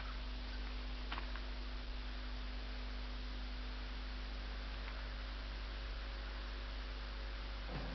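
Steady low mains hum with the even hiss of an old film soundtrack, and a faint click about a second in.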